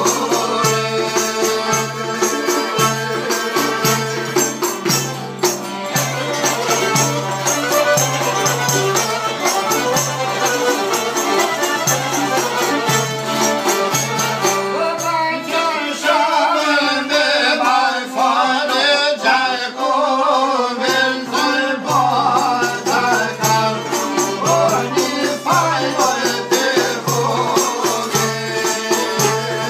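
Albanian folk song: men's voices singing over plucked long-necked lutes, with a jingling frame drum keeping a steady beat.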